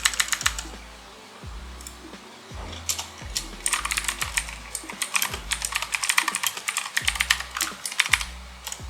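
Keys clicking on a Gigaware K28 budget mechanical keyboard: a quick cluster of presses at the start, scattered clicks, then a dense stretch of rapid typing in the middle. Background music with a repeating bass line plays underneath.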